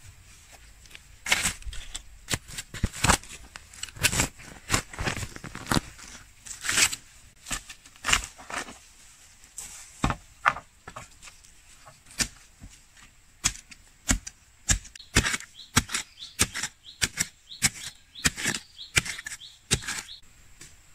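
A long-handled digging tool jabbed over and over into stony soil while digging a post hole: sharp, irregular strikes, about one or two a second.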